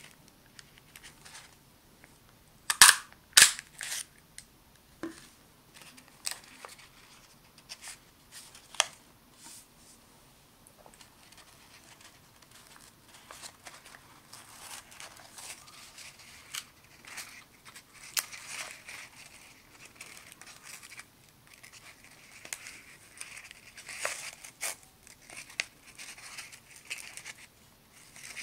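A hand-held two-hole paper punch snaps twice in quick succession through folded paper about three seconds in. After that comes soft, scattered rustling and crinkling of the paper as the folded bag is handled and a cord is threaded through its punched holes.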